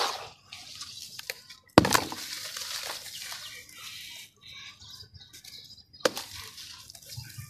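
Dry gritty sand crumbled between the fingers and sprinkled onto wet cement slurry in a tub: a rough, gritty rustling and pattering. There is a loud, sharp knock about two seconds in and another near the end.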